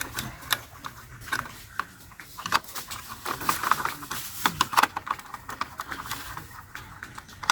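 Small screwdriver driving screws into a plastic toy bus, making irregular light clicks and scrapes.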